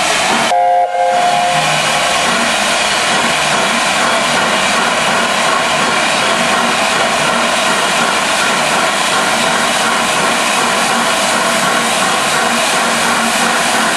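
Gresley A4 steam locomotive standing with its safety valves blowing off: a loud, steady hiss of escaping steam, dipping briefly about a second in. It is the sign that the boiler is at full working pressure.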